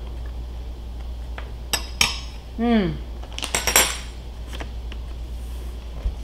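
Steak knife and fork clinking and scraping against a ceramic plate while cutting a crisp-coated pork chop, a few sharp clinks about two and three and a half seconds in. Between them a short hum that falls in pitch, like a voice's 'mm'.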